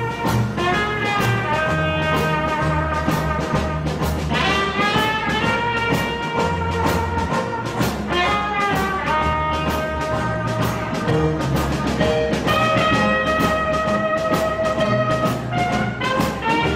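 Jazz band playing with a steady beat. A trumpet leads with long held notes that scoop upward into pitch twice, over drums and string bass.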